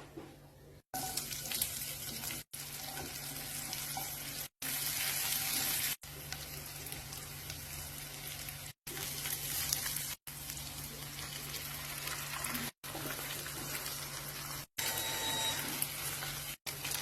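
Food sizzling in hot oil in a pan, a steady hiss cut off abruptly and restarting every couple of seconds.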